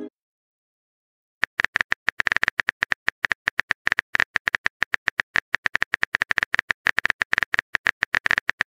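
A rapid run of short, identical electronic blips, about ten a second, starting about a second and a half in: a text-typing sound effect.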